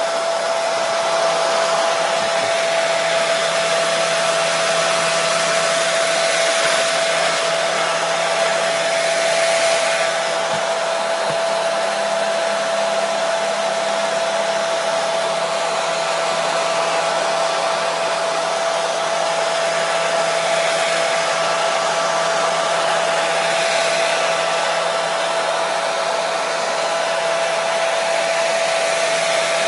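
Hair dryer running continuously: a steady, even hiss of blown air with a constant motor hum.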